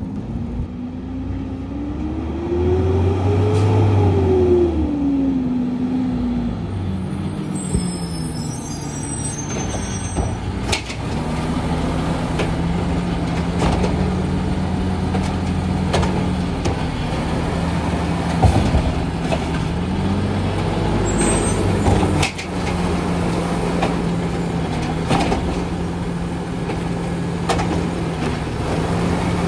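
Amrep automated side-loader garbage truck: its engine rises and falls in pitch over the first few seconds, then holds a steady raised idle while the hydraulic arm grabs and lifts a trash cart. A short hiss of air comes about seven seconds in, and several clunks from the arm follow.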